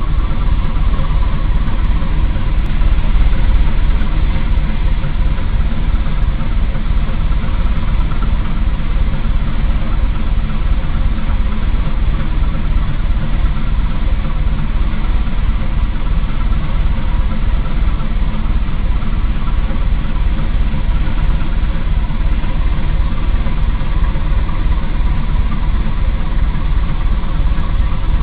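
A ship's engines running steadily under way, a continuous low rumble with a faint steady hum above it.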